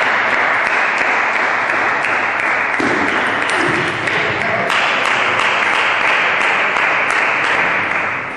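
Spectators applauding steadily, the clapping dying away near the end.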